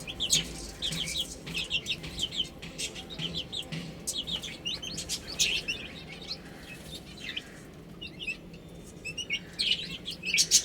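Chicks peeping in quick runs of short, high chirps, thinning out in the middle and busy again near the end.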